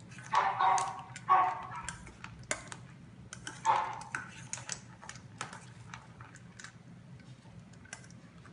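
A puppy eating dry kibble from a stainless steel bowl while a hand stirs the food: irregular clicking, rattling and crunching against the metal. There are three louder clatters in the first four seconds, then lighter ticking.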